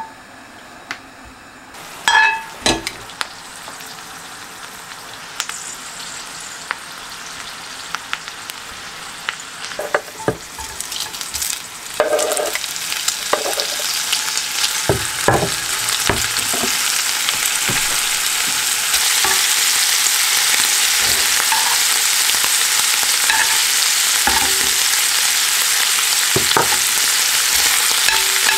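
Garlic and diced pancetta frying in olive oil in a cast-iron skillet. The sizzle builds gradually, jumps louder about twelve seconds in as the pancetta is in the pan, and then holds steady. Scattered light knocks come through in the first half.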